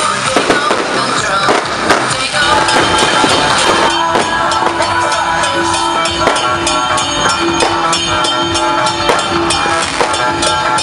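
Firecrackers crackling in dense, rapid pops over loud music. From about two and a half seconds in, a steady held note runs under the cracks.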